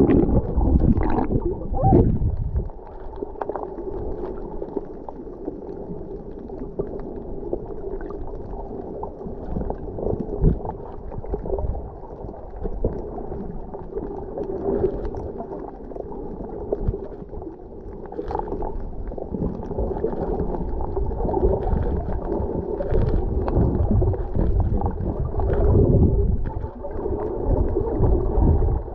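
Muffled underwater sound through a submerged camera: a steady low rumble and gurgle of moving water, with scattered short knocks.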